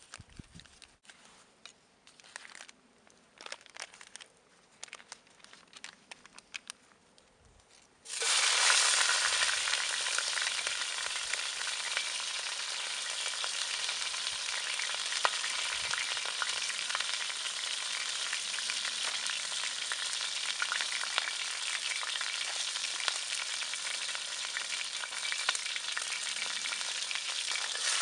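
Faint crinkling of the meat's wrapping, then about eight seconds in ground venison goes into hot olive oil in a cast-iron Dutch oven and starts a sudden, steady sizzle that keeps frying.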